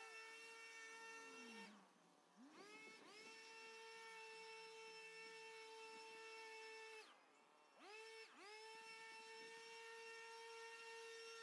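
Faint, distant gas-powered two-stroke lawn tool engine running at full throttle with a steady high whine. Twice it is let off, the pitch sliding down toward idle, then revved straight back up to full speed.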